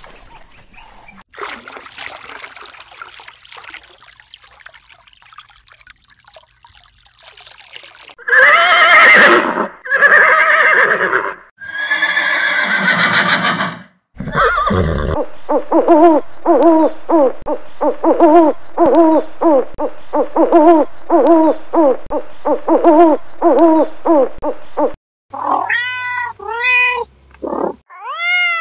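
A run of animal sounds: first a low rushing, splashing noise from a herd of galloping zebras, then three loud drawn-out calls, then a long series of short repeated calls at about two a second. Near the end a domestic cat meows several times.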